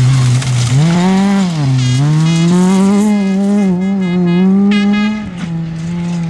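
Honda Civic rally car's four-cylinder engine running hard at high revs on a gravel stage. The pitch climbs, dips briefly about two seconds in, then holds high before dropping near the end as the car pulls away. Gravel spray hisses under the tyres at first.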